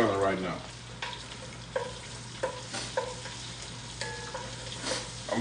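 Onions and garlic sizzling in melted butter in an enamelled Dutch oven, with a steady hiss. A utensil stirring them knocks against the pot about seven times, each knock ringing briefly.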